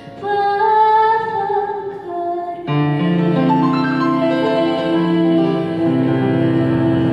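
A young girl singing into a microphone with grand piano accompaniment: a sung phrase, then from about three seconds in, long held notes over sustained piano chords as the song closes.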